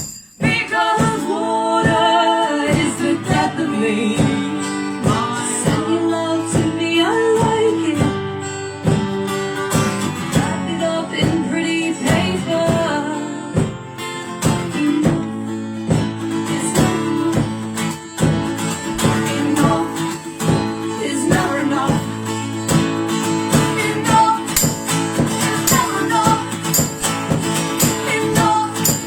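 Live acoustic song: acoustic guitar strummed in a steady rhythm with singing.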